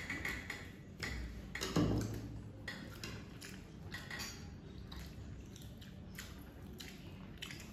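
People eating with their hands from plates: scattered soft clicks and taps of fingers, food and jewellery against the plates, with chewing, and a soft thump a little under two seconds in.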